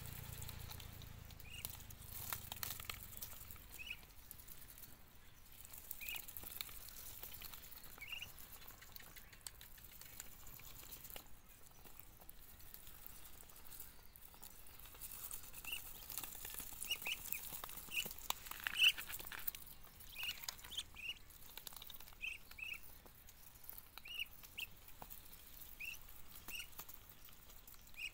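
Ducks pecking and tearing at leaves on dry ground: irregular soft clicks and crackling, with short high chirps every second or two, coming more often in the second half.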